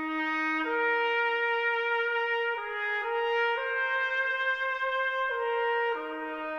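Slow brass music, trumpets holding long notes that step to new pitches every second or two.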